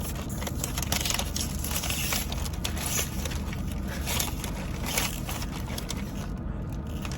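A plastic snack wrapper being crinkled and torn open by hand: a run of crackling rustles over a steady low rumble.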